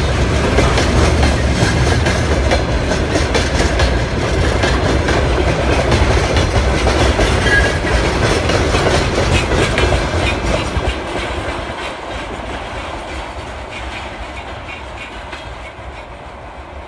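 Freight train wagons rolling past, their wheels clattering over the rail joints. About ten seconds in the clatter starts to fade and keeps dying away as the train moves off.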